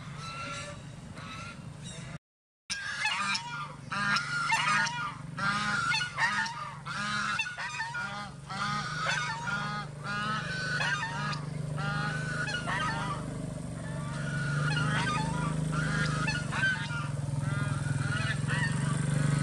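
Many honking bird calls, several a second, over the steady low hum of a small motorcycle engine running. The sound cuts out for half a second about two seconds in.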